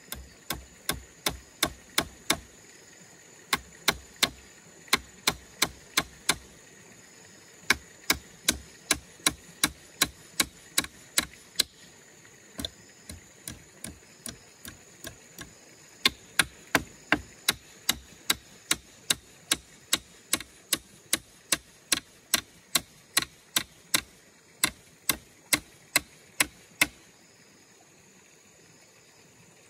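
Hammer blows on a wooden gate frame: sharp strikes about two a second in runs of several, broken by short pauses, with a stretch of lighter taps about halfway through. The hammering stops a few seconds before the end.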